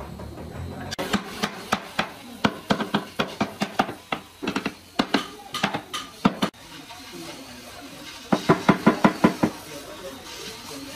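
A hammer striking hardwood panels as they are knocked together, in an uneven series of sharp knocks, about three or four a second. After a pause about two-thirds of the way in comes a quicker run of blows.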